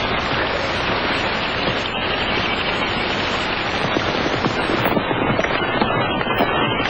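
Several horses galloping, a dense run of hoofbeats that stands out more clearly in the second half.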